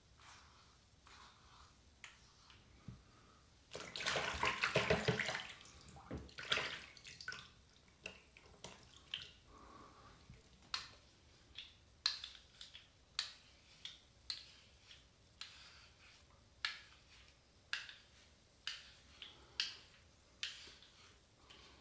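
Brief rush of running water about four seconds in, then a HeadBlade S4 Moto razor scraping over a lathered scalp in a long run of short strokes, roughly one and a half a second.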